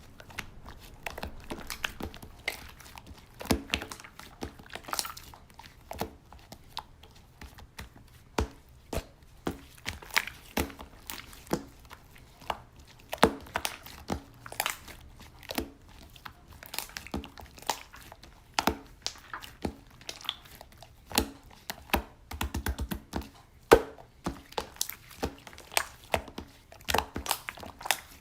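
Slime being kneaded and pressed by hand, making irregular sharp clicks and pops.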